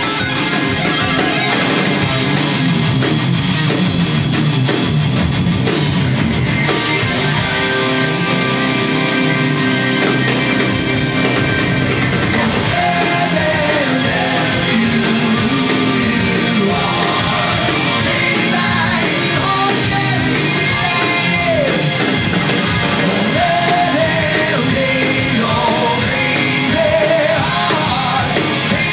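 Loud live hard rock: a rock band playing electric guitar, bass guitar and drums, with a lead vocal coming in about twelve seconds in.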